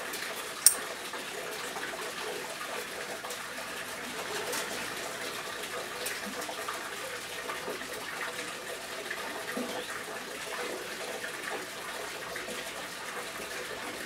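Steady running water, with one sharp click just under a second in.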